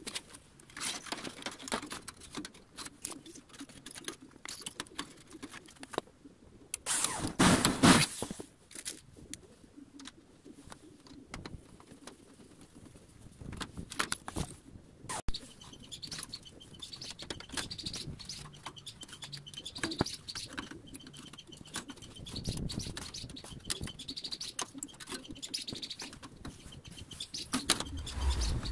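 Scattered clicks and clinks of metal and plastic parts being handled around a metal pail, with one louder rough scraping rattle about seven seconds in. Birds chirp in the background through the second half.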